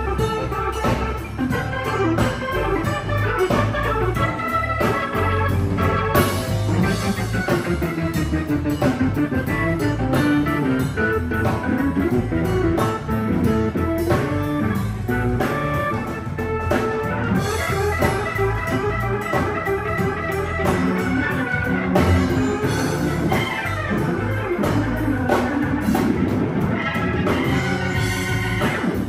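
A live band playing, with an organ out front over drum kit and electric guitars.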